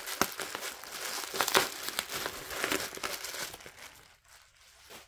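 Plastic bubble wrap crinkling and crackling as it is handled and pulled off a vinyl LP sleeve, stopping near the end.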